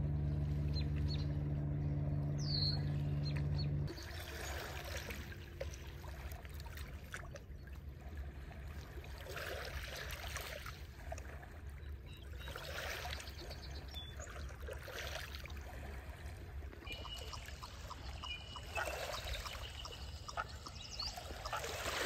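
Small waves lapping on a pebble shore, a soft wash that swells and fades every few seconds. For the first four seconds a steady low hum runs underneath, then cuts off suddenly, and a few faint bird chirps come through.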